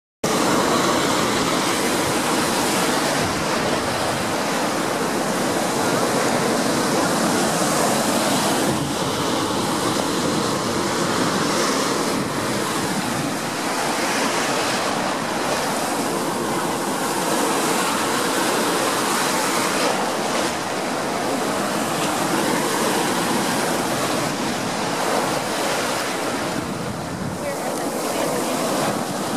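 Ocean surf breaking and washing through shallow water: a steady rush that swells and eases with the waves.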